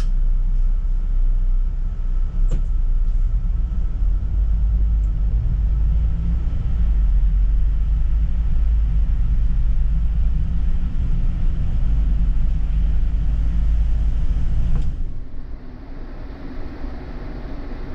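City bus in motion, heard from the front of the bus: a steady, loud low rumble of engine and road, with a single click about two and a half seconds in. About fifteen seconds in the rumble drops off abruptly to a quieter, thinner sound.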